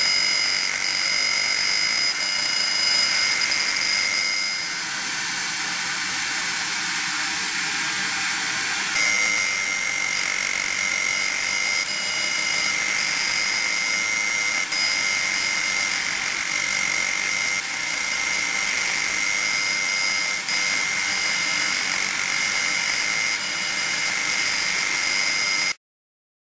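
Pulsed laser stripping paint from a metal part: a loud, steady, high-pitched buzzing whine from the coating being ablated. About five seconds in it drops to a quieter hiss for a few seconds, then comes back at full strength, and near the end it cuts off suddenly.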